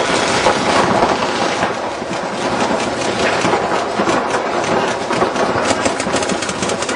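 Rapid, dense popping of several paintball markers firing at once during a game, shots overlapping almost continuously.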